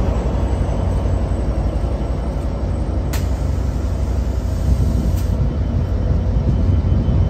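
Amtrak California F59PHI diesel-electric locomotive running with a steady low rumble as the train moves, with a short sharp click about three seconds in and a fainter one about five seconds in.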